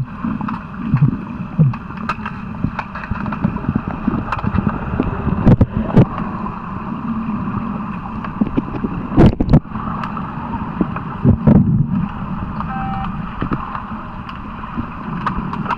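Underwater pool sound through a submerged camera: a steady rush of water with a faint hum, scattered clicks, and a few sharper knocks, loudest about six and nine seconds in.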